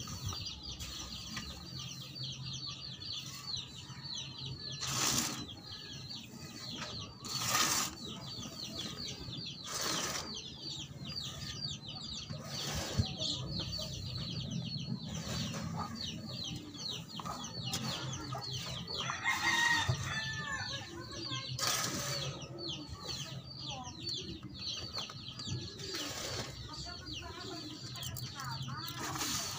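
A metal shovel scraping and scooping through a heap of soil on a tarp, one stroke every few seconds, while chickens cluck in the background.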